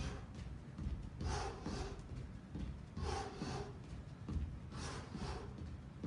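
A man breathing hard during a boxing workout, with short sharp exhalations, often in pairs, about every two seconds.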